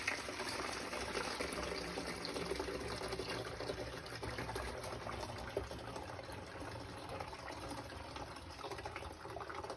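Fresh apple juice poured in a steady trickle from a stainless steel bowl through a mesh strainer and funnel, filling a plastic bottle.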